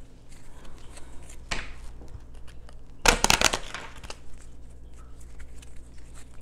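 Rustling and crinkling handling noise, with one faint rustle and then a louder crackly burst about three seconds in lasting about half a second.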